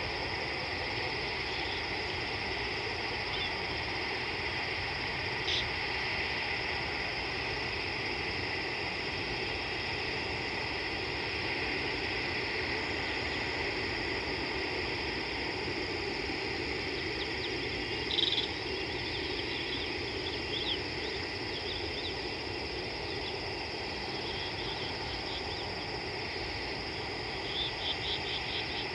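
Steady evening chorus of small calling animals, a continuous high-pitched trilling buzz. Short chirps stand out over it, once about five seconds in, more loudly around eighteen seconds with a scatter of quick chirps after, and a rapid run of chirps near the end.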